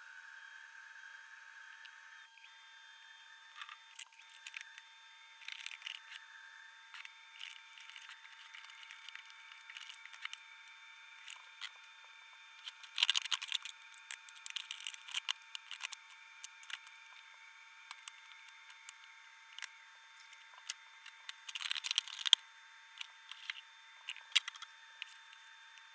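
Praying mantis (Sphodromantis) chewing through a locust: faint, irregular crunching and crackling clicks, with louder clusters about halfway through and again near the end, over a thin steady hiss.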